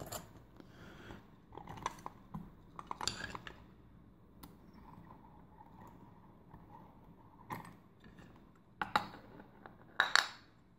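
Light metallic clicks and clinks, about seven separate knocks spread unevenly, from a euro cylinder lock and metal picking tools being handled and set down on a hard surface.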